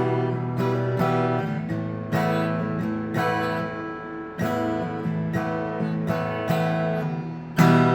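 PRS SE Angelus A60E acoustic guitar being strummed, one chord after another with each left to ring, and a hard strum near the end.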